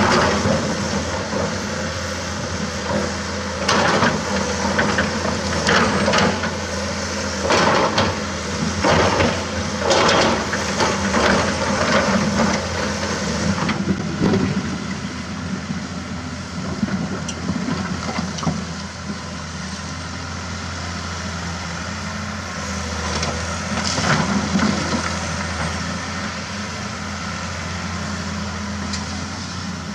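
Komatsu PC200-6 excavator's diesel engine running steadily while its bucket digs into and drops broken concrete rubble, with repeated crashes and clatter of concrete chunks every second or two in the first half. After that it is mostly the steady engine drone, with a few softer knocks.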